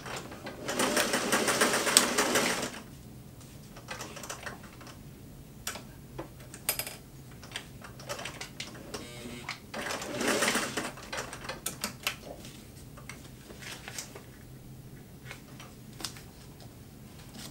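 Singer 503A "Rocketeer" sewing machine running in two short bursts of fast stitching, one about a second in and one near the middle. Light clicks from the handwheel being turned by hand and from fabric handling come between them.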